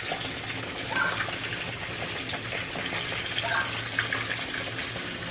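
Fish frying in hot oil, a steady sizzling hiss.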